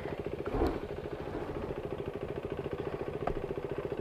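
Motorcycle engine running at low revs with a steady, even beat. A single knock about half a second in, and a short click near the end.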